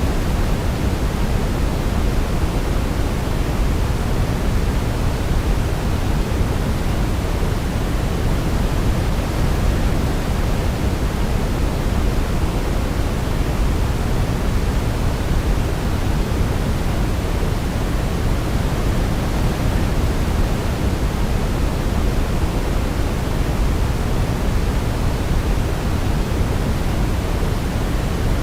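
Steady white noise for baby sleep: an even, unbroken hiss weighted toward the low end, with no melody heard over it.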